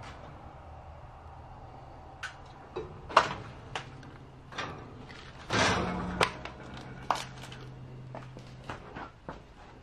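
Scattered sharp clicks and knocks at irregular intervals, with a longer scuffing noise about five and a half seconds in, over a faint steady low hum.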